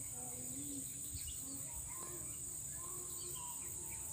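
Insects trilling steadily in a high-pitched chorus, with a few faint bird chirps over it.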